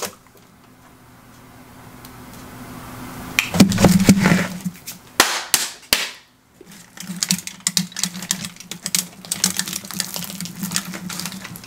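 Hands rubbing together, then a large pizza and the paper under it being handled as a slice is pulled loose: irregular crackling and rustling from about halfway through.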